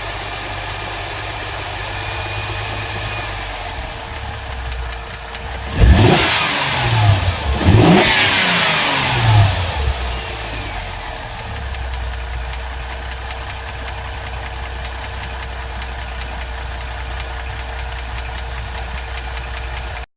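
Mercedes M272 3.5-litre V6 engine of a 2007 CLS 350 idling with a steady whine, revved up briefly twice in quick succession about six and eight seconds in, then settling back to idle. The owner hears an extraneous engine noise whose cause he does not know.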